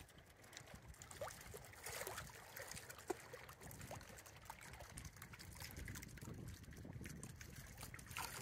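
Faint trickling water, with small bubbling plinks over a low rumble.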